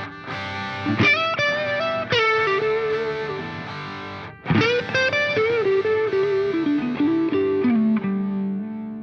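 Background music led by a distorted electric guitar playing melodic phrases, its last note held and fading near the end.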